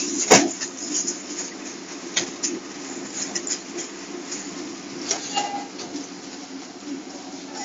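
Continuous band sealer running with a steady motor hum. There is a sharp click just after the start and a few fainter clicks later on.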